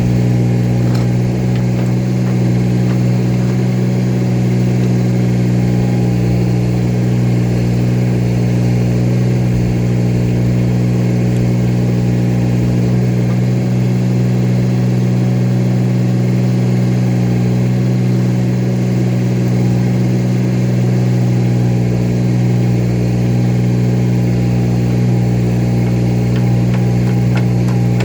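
An engine running steadily at constant speed, its pitch unchanging.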